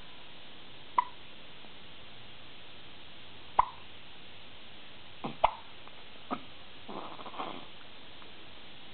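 One-month-old baby hiccuping: five short, sharp hiccups, a couple of seconds apart at first, then closer together. A brief soft baby sound follows near the end.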